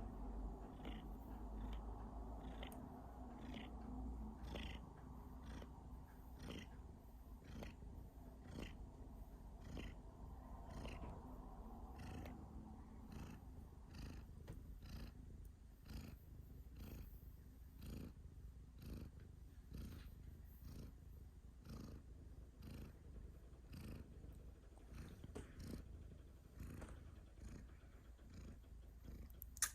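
Domestic cat purring quietly and steadily, with short clicks repeating regularly about once or twice a second.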